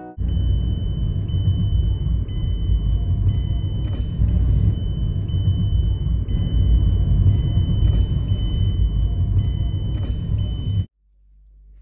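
Loud low rumble of a car on the move, road and wind noise on the phone's microphone, cutting off suddenly near the end.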